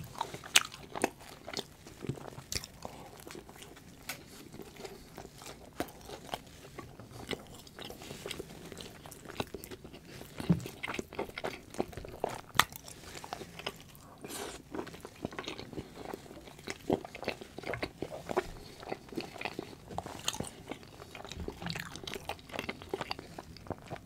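Close-miked chewing and biting of food, with many sharp, irregular crunchy and wet mouth clicks.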